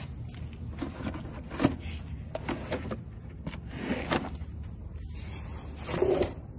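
Metal drawers of a US General rolling tool cart being slid and handled, with several knocks and scrapes of metal. The loudest knock comes about a second and a half in, and a longer scraping clatter comes near the end.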